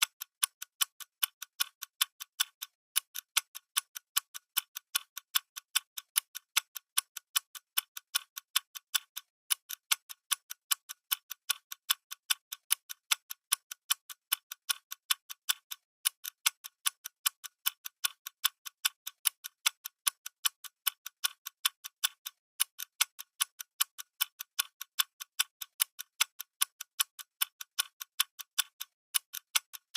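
Clock ticking sound effect: a steady, fast run of short, crisp ticks, alternating louder and softer strikes.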